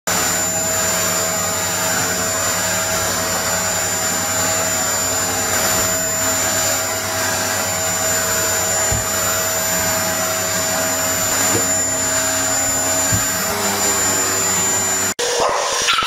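Vacuum cleaner running with a steady whine while a dog barks at it. The sound cuts off abruptly about a second before the end and gives way to a different, pulsing sound.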